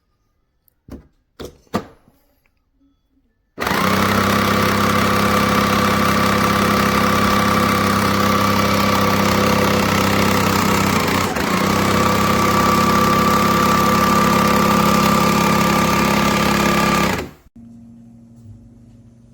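A few clicks, then a Breville Barista Touch Impress espresso machine runs with a loud, steady mechanical hum for about thirteen seconds, dipping briefly partway through, before it stops abruptly.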